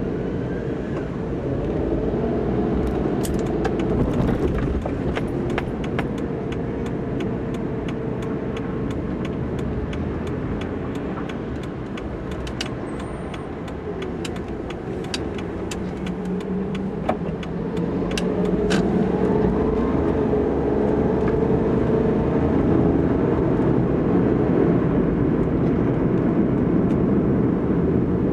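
Car driving in city traffic: steady engine and road noise, with the engine pitch rising as the car speeds up in the second half. Scattered sharp clicks and rattles run through the first two-thirds.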